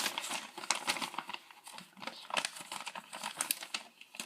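Irregular crinkling and light clicking of handled packaging: a toy's plastic polybag and paper instructions being handled.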